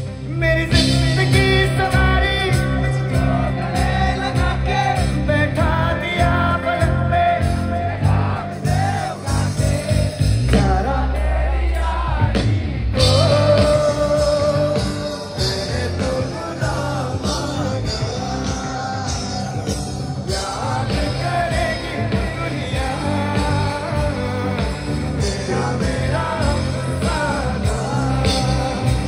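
Live band music played loud through a PA system, with a lead vocalist singing over steady bass and instrumental backing.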